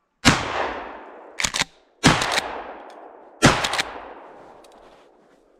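Three shots from a 20-gauge pump-action shotgun, about a second and a half apart, each ringing off through the woods as it fades, with quick clacks of the pump being worked between them.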